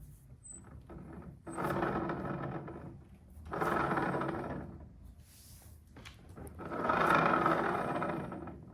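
Three scraping, sliding sounds, each lasting one to two seconds and swelling then fading, with short pauses between them.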